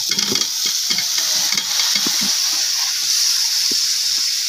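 Boiled hog plum pieces tipped into hot mustard oil and spice paste in a metal pot, frying with a steady sizzling hiss. Knocks of the pieces landing come mostly in the first two seconds.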